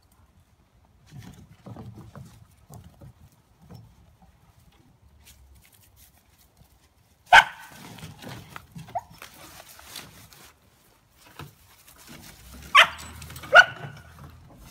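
Young dogs barking: a sharp bark about halfway through, a smaller yip a little later, and two quick sharp barks near the end. Paws shuffle on a wooden deck in between.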